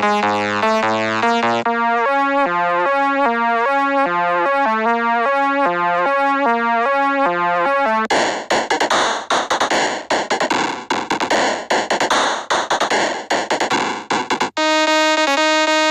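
Synthesizer music made of short repeating melodic loops that switch abruptly from one to the next, about two seconds in, around the middle and again near the end. The middle loop is harsher and noisier than the clean, bright keyboard-like loops around it.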